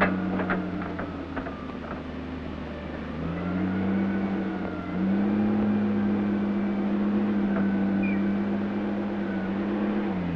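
Forklift engine running under load, with a clank right at the start; the engine note rises about three seconds in and again a couple of seconds later, holds steady while the crate is raised to the truck bed, and drops back near the end.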